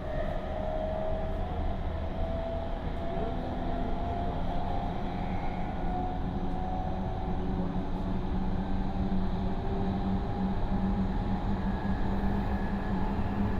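Toyo Denki GTO-VVVF inverter whine heard inside the passenger car of a Meitetsu 3700 series train while it runs, over the steady rumble of wheels and running gear. The inverter tone rises slowly in pitch over the first half. This in-car inverter noise is unusually loud, which the uploader takes as abnormal.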